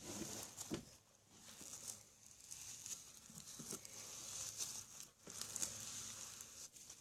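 Hands squeezing and stretching sticky white-glue slime mixed with tiny decorative sand rocks: a faint, soft crinkling with small scattered clicks, not crunchy.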